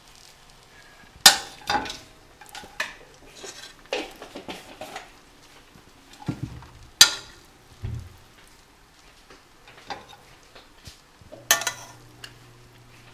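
A metal spoon scooping cooked rice out of a pan onto a plate: soft scrapes and taps, with three sharp clinks of metal against the dishes, about a second in, about seven seconds in, and near the end. A low steady hum comes in near the end.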